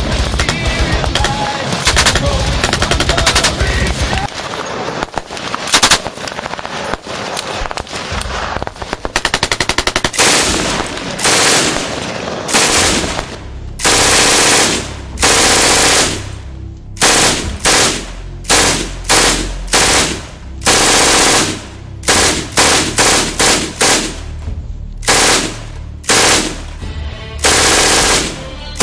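Machine-gun fire: a dense stretch of continuous firing, then from about ten seconds in a string of short bursts, each under a second, starting and stopping sharply.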